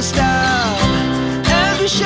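Background pop song with a steady beat, guitar and a singing voice.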